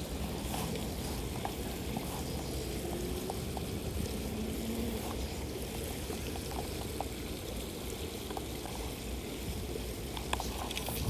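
Steady rushing and trickling of flowing creek water, with faint scattered small clicks.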